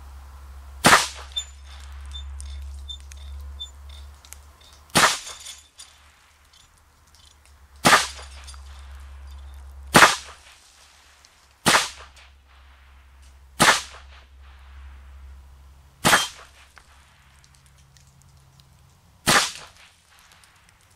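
Eight single .22 LR rifle shots from a Bushmaster Carbon-15 AR-15 fitted with a .22 long rifle conversion bolt, fired one at a time a second or two to three seconds apart, each a sharp crack with a short tail.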